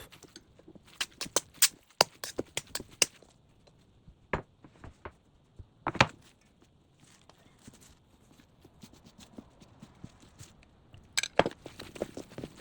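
Kitchen utensils clicking and knocking against dishes or cookware in irregular clusters: a quick run of taps in the first few seconds, single sharper knocks a little later, and another short flurry near the end.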